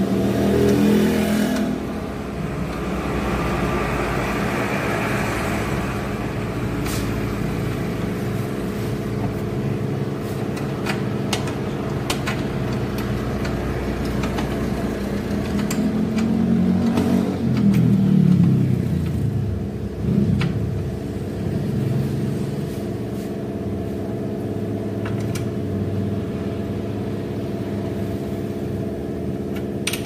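A motor running steadily with an even hum, and scattered sharp clicks and clanks of hand tools on a car's front suspension. A louder, wavering stretch comes a little past halfway.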